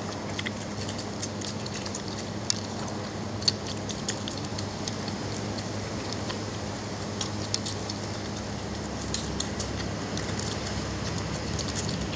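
Belgian Malinois puppies suckling at their mother's teats: many quick, irregular clicks and smacks over a steady hiss and low hum.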